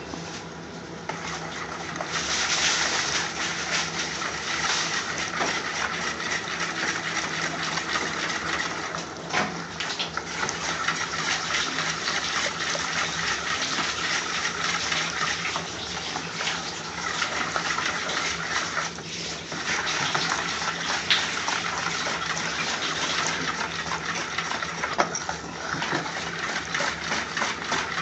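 A bowl of liquid masala sauce (yogurt, oil, lemon juice and spice pastes) being mixed vigorously, a steady wet churning and swishing. It starts about two seconds in and pauses briefly twice.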